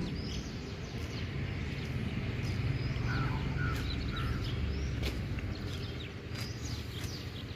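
Early-morning outdoor ambience: many small birds chirping and calling over a steady hiss and low rumble.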